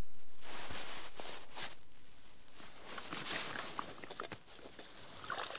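Rustling and scuffing of a padded jacket and boots shifting on lake ice, with a few brief sharp scrapes and knocks.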